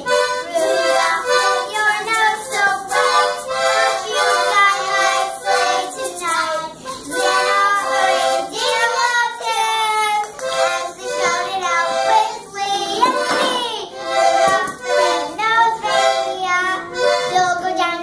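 A small toy accordion pumped in short, repeated chords, about two a second, while young girls sing along over it.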